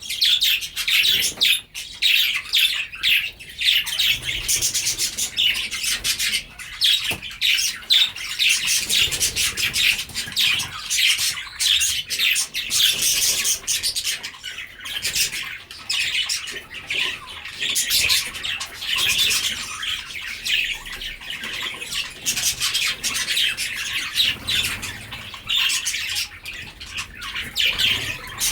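A colony of many budgerigars chattering and squawking at once, a dense, continuous mass of overlapping chirps and harsh calls.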